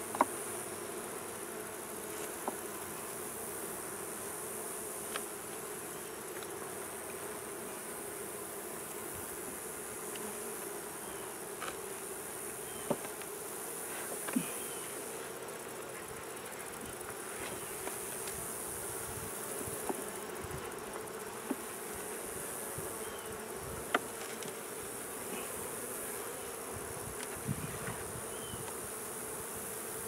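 Honey bees humming steadily over an open hive, with a few sharp clicks and knocks from the wooden hive frames being handled.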